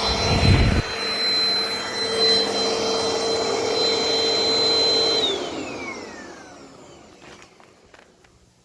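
Dirt Devil Dynamite Plus corded vacuum running steadily with a high whine, then switched off about five seconds in, its motor winding down, the pitch falling away over a couple of seconds. A brief low thump near the start, and a few light clicks near the end as it goes quiet.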